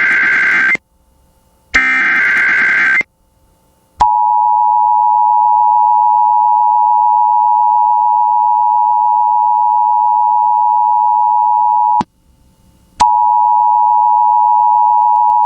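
Emergency Alert System header over radio: two short raspy bursts of digital SAME data tones, then the steady two-tone EAS attention signal, which breaks off for about a second and starts again.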